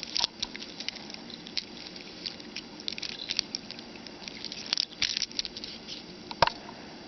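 Small clicks and rattles of metal link watch bracelets being handled, with one sharper knock about six and a half seconds in.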